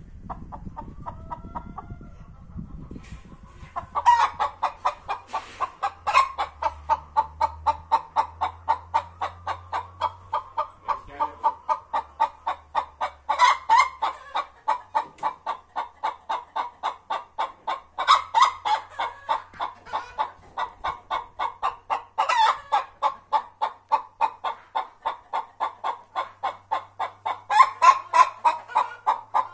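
Domestic hens clucking in a fast, steady run, with louder accented calls every few seconds, starting about four seconds in: agitated clucking of hens contesting the same nesting spot.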